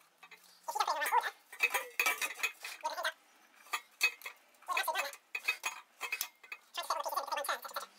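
Metal pipe fittings clinking and scraping in short, irregular bursts as an air filter-regulator unit is turned by hand onto a threaded fitting on a compressor tank.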